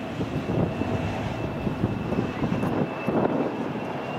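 Airbus A330-900neo's Rolls-Royce Trent 7000 turbofans spooling up for takeoff, a steady jet roar with a thin high whine slowly rising in pitch. Gusty wind rumbles on the microphone.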